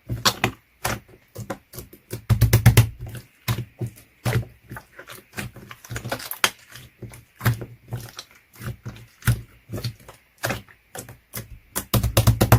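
Slime being squeezed and pressed by hand, making rapid irregular clicks and pops, several a second, with louder clusters about two seconds in and near the end.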